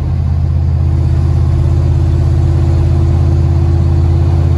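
Pickup truck's engine and exhaust droning steadily at highway cruising speed, heard from inside the cab, with road noise underneath; it swells slightly in the first second, then holds even.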